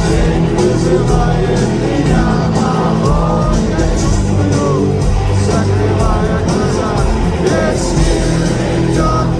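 Rock band playing live at loud, steady level: electric guitars, bass and drums, with a voice singing the melody.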